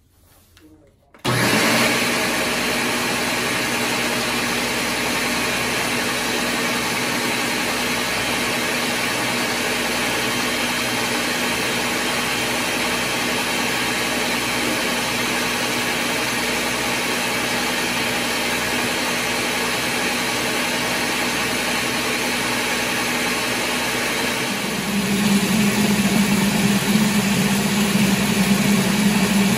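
High-power countertop blender switched on about a second in and running steadily at full speed, blending cauliflower with a little water into a purée. Near the end it gets louder, with a stronger, slightly lower hum.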